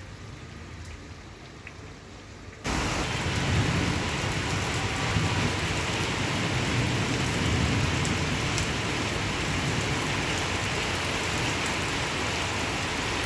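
Heavy rain pouring in a steady, even hiss. For the first few seconds there is only a quieter background; the sound jumps abruptly to the loud rain a little under three seconds in.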